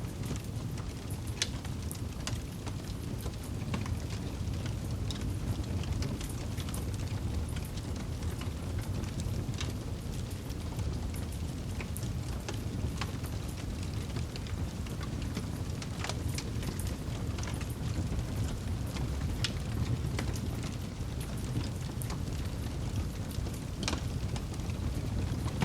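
Wood campfire burning: a steady low rush of flames with irregular sharp crackles and pops from the burning wood.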